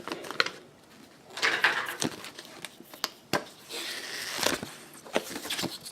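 Packaging being handled and rustled, with crinkling about one and a half and four seconds in and scattered small clicks and knocks as the hub and its contents come out of the box.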